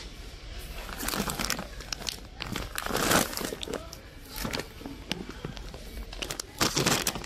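Plastic packaging of a large bag of washing powder crinkling in irregular bursts as it is picked up and handled.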